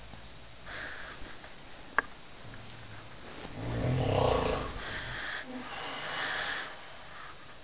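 A man snoring in his sleep. A short breath comes about a second in and a sharp click about two seconds in. Then there is one long, low snore in the middle, followed by a breathy hiss.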